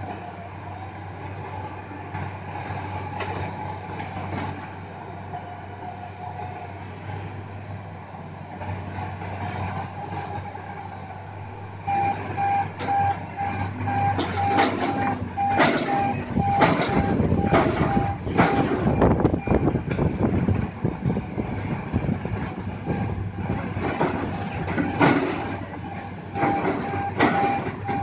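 Diesel engine of an XCMG crawler rotary drilling rig running steadily. About twelve seconds in, a warning beeper starts at about two beeps a second, as the rig swings. Heavy metallic clanks and knocks come repeatedly through the second half.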